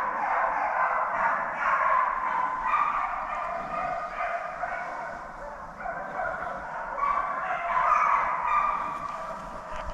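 A pack of deer hounds baying, many voices overlapping in a continuous chorus that swells and fades.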